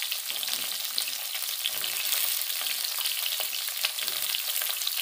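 Hot oil sizzling and crackling steadily in a wok as chopped vegetables fry, the vegetables being sautéed in tempered oil for sambar.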